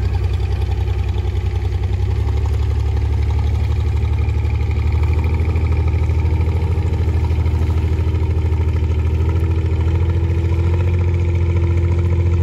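Boat engine running steadily: a low, fast-pulsing drone.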